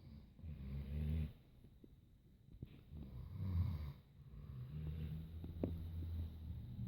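Snoring: three low, rattling snores, the last one longer than the first two.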